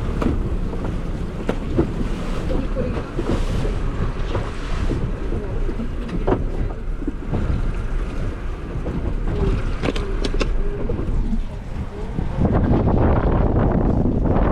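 Small boat in rough, choppy water: wind buffeting the microphone and waves slapping the hull, with a few sharp knocks. The rushing grows louder near the end.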